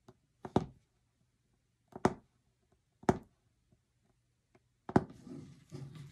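Embroidery punch needle being pushed through taut fabric on a frame: four sharp pops, roughly a second apart. Near the end comes a longer soft rustle of the cloth being handled.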